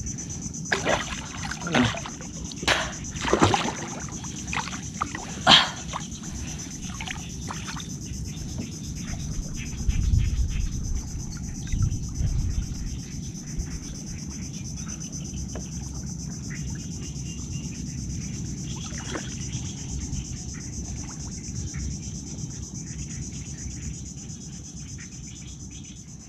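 Steady high-pitched insect drone, typical of crickets or cicadas, with a few sharp knocks in the first six seconds and a low rumble about ten seconds in.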